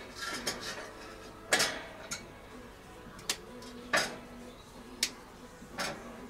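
Sharp metal clinks and knocks, about six spread over a few seconds, as things are handled inside the bowl of a small kettle barbecue.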